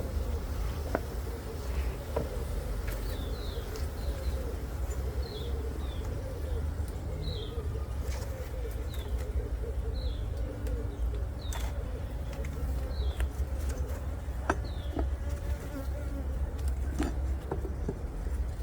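Honeybees buzzing steadily around an opened brood box, with scattered sharp clicks and knocks and short high chirps repeating about every second and a half.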